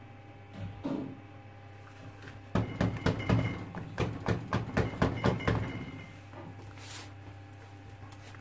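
A silicone soap mold filled with hot-process soap rapped about a dozen times, roughly four a second, on a stainless steel counter, a run of sharp knocks lasting about three seconds.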